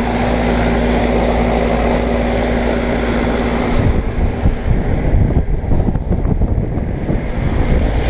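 2004 Payne teardrop central air-conditioner condenser running, its Copeland reciprocating compressor and condenser fan giving a steady hum. About four seconds in, gusty wind rumble on the microphone takes over.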